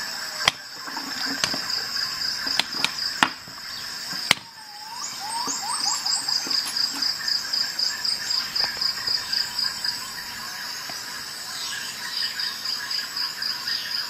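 Sharp metallic clicks and knocks of steel Victorinox Swiss Tool multi-tools being handled and set down on a glass desktop, about half a dozen in the first four and a half seconds. Behind them a steady, high, rapidly pulsing chirp runs on.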